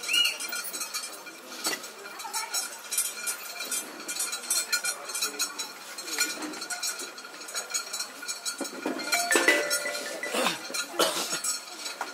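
Rapid light metallic clinking and jingling, growing louder and busier about nine to eleven seconds in.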